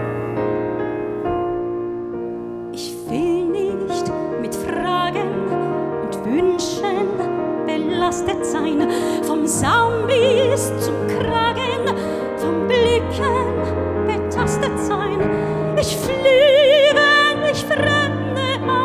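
Grand piano playing alone for about three seconds, then a soprano enters singing in German over the piano accompaniment, with a wide vibrato. Her voice grows louder near the end.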